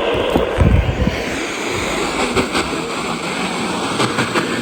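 Steady radio static hiss from a weather-radio receiver between broadcast alerts, with a brief low rumble about a second in.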